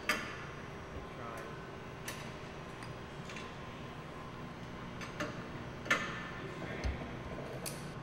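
Scattered sharp clicks and light metallic clinks of hand work on a steel crash-test rig and its fittings, with a dull thud about seven seconds in, over a steady workshop hum.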